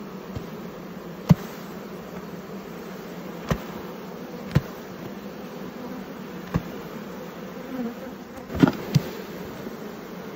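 Honeybees in an opened hive buzzing in a steady, even hum. A few sharp taps are scattered through it, two of them close together near the end.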